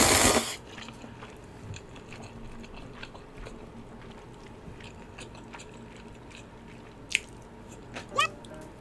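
Spicy ramyun noodles slurped loudly from a bowl at the very start, then close-up chewing with small wet mouth clicks. Two short sharp mouth sounds come near the end.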